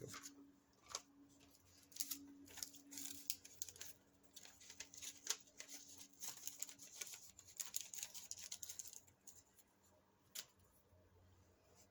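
Faint handling of paper and cardstock on a craft table: scattered light clicks and taps with soft rustling, busiest in the middle and thinning out near the end.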